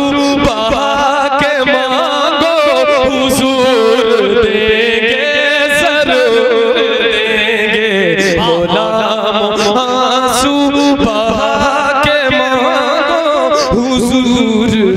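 A man singing a naat into a microphone in long, ornamented held phrases, his pitch wavering and sliding through each note, with no clear words.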